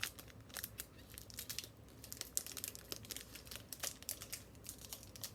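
Foil wrapper of a Pokémon card booster pack crinkling as it is handled and opened by hand: a run of irregular small crackles.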